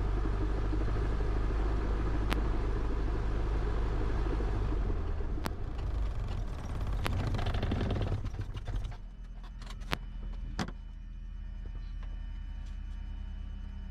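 Cessna 172's piston engine running at a fast idle during shutdown, then dying away about nine seconds in as it is shut down. After it stops there are two sharp clicks, like cockpit switches, over a faint steady hum.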